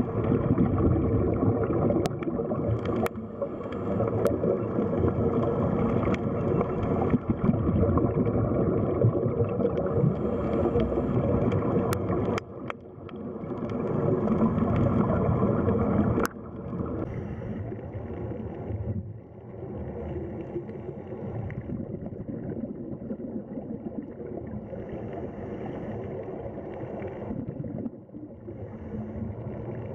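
Muffled underwater noise: a dense, steady rumble of moving water with a faint steady hum, picked up through the sea. A few sharp clicks break through in the first half, and the noise drops suddenly to a quieter level about 16 seconds in.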